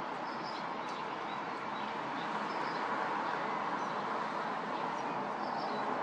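Steady city background noise of distant traffic, with a few faint, short, high bird chirps scattered through it.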